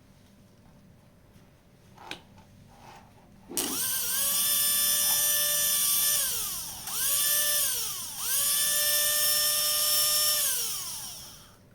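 High-speed 480 electric motor for a gel blaster or airsoft gun run up three times, each time holding a steady high-pitched whine before it slows down when the power is cut. Small knocks come just before the first run.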